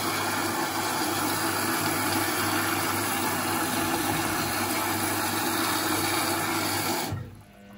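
A steady mechanical whir with a low hum underneath, cutting off abruptly about seven seconds in.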